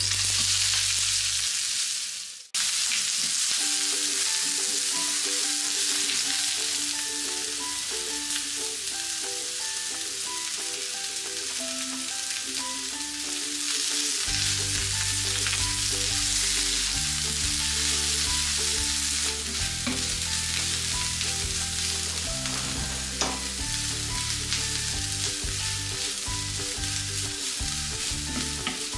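Sliced onions and green chillies frying in hot mustard oil in a nonstick pan: a steady, loud sizzle as a wooden spatula stirs them. The sizzle breaks off for a moment about two and a half seconds in, then carries on.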